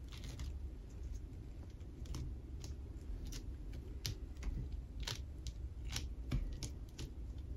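Small rune discs clicking and tapping against one another and against fingernails as they are turned face up and nudged apart by hand on a woven mat; irregular sharp clicks, about one or two a second, over a low steady hum.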